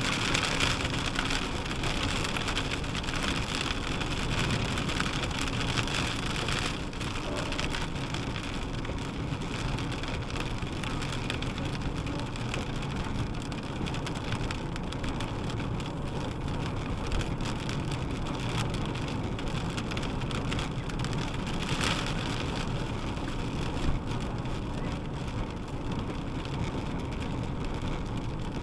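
Steady road and engine noise heard from inside a moving car, mixed with rain hitting the windshield and body; the higher hiss is stronger for the first several seconds and then eases.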